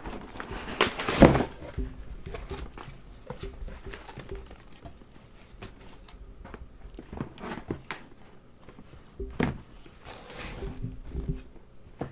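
A box of DVDs and Blu-rays being opened and rummaged through by hand: irregular crinkling, rustling and handling noises, the loudest burst about a second in.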